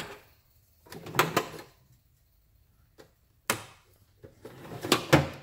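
Chrome steel sockets clinking and knocking as they are handled among the socket rails of a metal tool chest drawer, with the drawer rolling on its slides. The sounds come as several short, separate clatters with quiet between them, the busiest just before the end.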